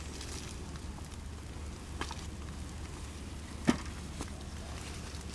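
Sweet potatoes and soil being handled while digging through a dumped container: a few short, faint knocks and clicks over a steady low hum.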